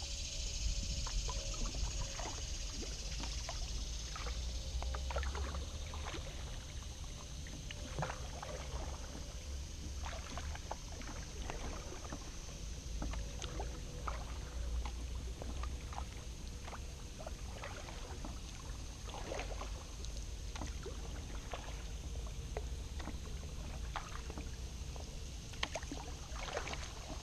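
Kayak paddle dipping and pulling through calm water, with scattered small splashes and drips coming at irregular intervals over a steady low rumble.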